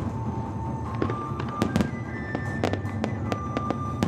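Aerial fireworks bursting: several sharp bangs and crackles, with music with held melody notes playing underneath.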